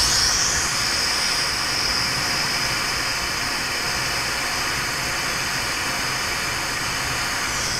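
Glassworking bench torch flame hissing steadily at full burn.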